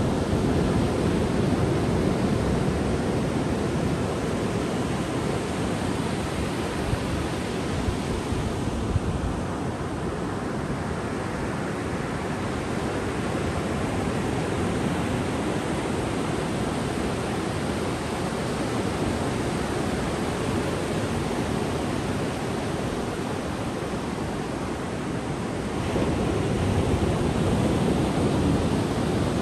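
Ocean surf breaking and washing up a sandy beach: a steady rush of waves with no other sound, swelling louder again near the end.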